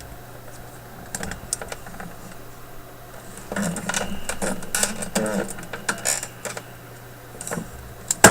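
Light clicks, taps and rattles of a workbench lamp being moved and adjusted, busiest in the middle, with one sharp knock at the very end.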